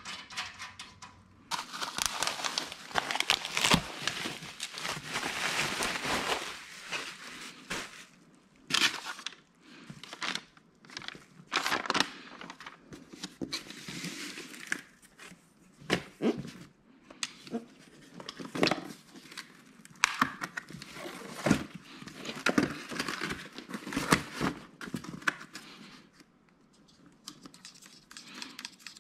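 Plastic packing wrap and cardboard being handled: irregular bursts of crinkling and rustling.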